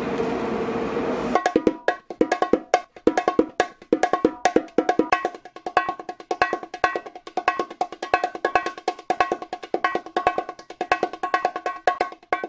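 Steady subway train noise at the platform for about a second and a half, then an abrupt cut to percussive background music: a quick, steady run of sharp, pitched knocks.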